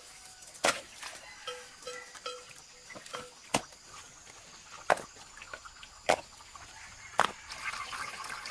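Stones clacking against one another as rocks are set down in a shallow streambed: five sharp knocks about a second apart. Between the first two knocks an animal gives a run of short repeated calls, and water starts splashing near the end.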